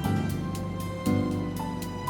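Soft instrumental background music: held notes under a simple melody, with a light, steady ticking beat.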